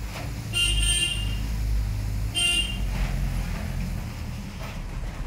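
A vehicle horn sounds twice, a longer blast about half a second in and a short toot about two and a half seconds in, over the steady low drone of the truck's engine heard from inside its cab.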